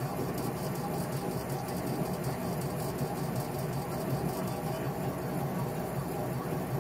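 Laser engraver running while it marks a Cermark test: a steady machine hum and whir.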